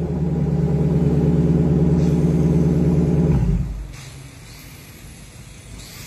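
Lexus LC500's 5.0-litre V8 running through an ARMYTRIX decat valvetronic exhaust, held at steady raised revs. About three and a half seconds in, the revs drop and it goes much quieter.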